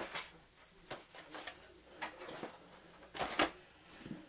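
Cardboard boxes of a model train set being set down and shuffled on a blanket: a few short knocks and rustles, the loudest about three seconds in.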